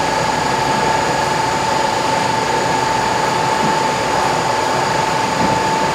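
Steady machinery noise with a constant high-pitched whine running through it, unchanging.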